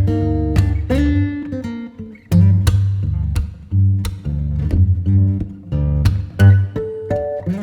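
Background music: acoustic guitar plucked and strummed over a bass line.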